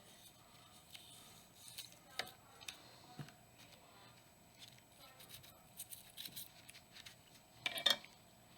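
A brush scrubbing suppressor parts in a baking-soda neutralizing bath: irregular scratching, light clicks of metal and small splashes, with the loudest burst near the end.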